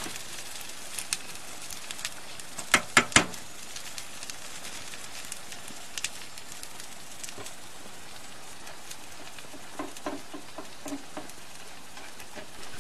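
Food sizzling in skillets on a wood-burning tent stove, a steady frying hiss. A few sharp clicks come about three seconds in, and a few short soft pitched sounds near the end.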